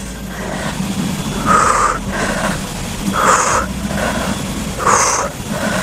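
A woman's heavy breathing from exercise effort: three loud exhales, about one every second and a half to two seconds, in time with repeated side-plank hip lifts.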